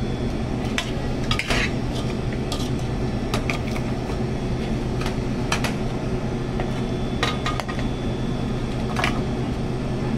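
A metal spoon scraping and clinking against metal pans as a cooked, chunky liver mixture is scooped from a skillet into a small saucepan, in scattered short knocks, over a steady low hum.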